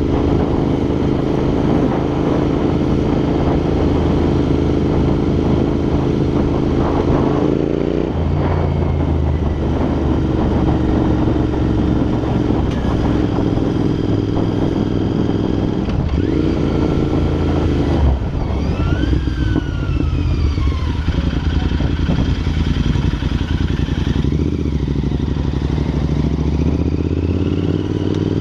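Royal Enfield INT650's 648 cc parallel-twin running through aftermarket Red Rooster exhausts under way, the note dropping at gear changes about eight and sixteen seconds in, falling off in the second half and rising again near the end. Wind noise on the helmet-side microphone runs under it.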